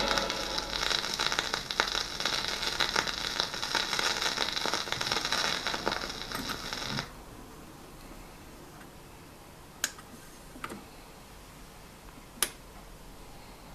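Crystal pickup of a 1950s Philips AG9105 record changer riding the run-out groove of a single after the song has ended: hiss and crackle of the record surface through the player's amplifier, cutting off suddenly about seven seconds in. Then a few sharp mechanical clicks as the tone arm goes back to its rest.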